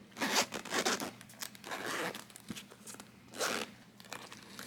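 Zip on a small soft case being pulled open in several short tugs, with rustling as the case is handled.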